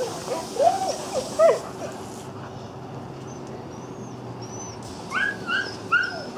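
Dogs whining and yipping. A cluster of short whimpers comes in the first couple of seconds, then three higher-pitched yips about five seconds in.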